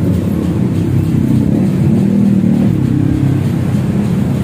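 Kawasaki ZX-25R's 249 cc inline-four engine running at idle through an Akrapovic-style carbon slip-on exhaust, rising slightly about two seconds in.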